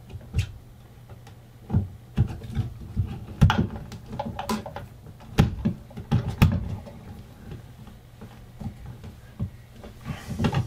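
Irregular clicks and taps of a hand crimping tool and copper wires being worked in a plastic electrical box as a crimp sleeve is put onto the bundled ground wires, over a low steady hum.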